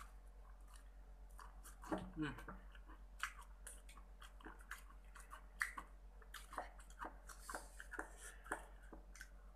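Close-miked chewing of fried chicken: irregular crunches, wet mouth clicks and smacks, with a brief low hum from the eater about two seconds in.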